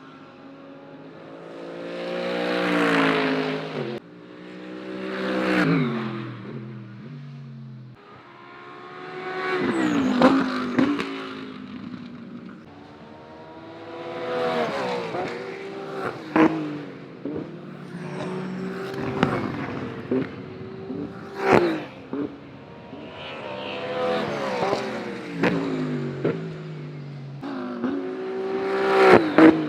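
GT3 race cars passing trackside one after another, about seven flybys, each engine note rising to a peak and falling in pitch as the car goes by. Several sharp cracks sound along the way, and the sound cuts abruptly between edited clips twice near the start.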